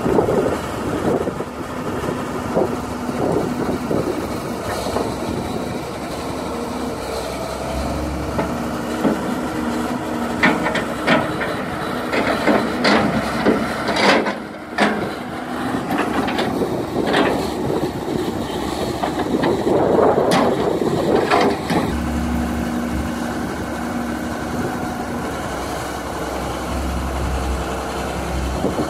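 Priestman Bogmaster tracked excavator's diesel engine running and working its hydraulics while digging wet peat. A run of sharp clanks and knocks from the bucket and arm comes around the middle, and the engine labours louder and lower for a moment shortly after.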